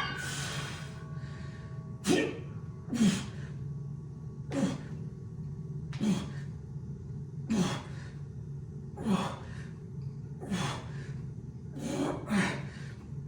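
A man breathing hard from exertion, with a short forceful exhale or grunt, falling in pitch, about every one and a half seconds, over a steady low hum.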